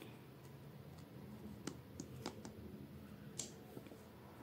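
Faint clicks and light taps of a plastic hand citrus juicer being handled, about five in the second half, the sharpest a little after three seconds in, over low room noise.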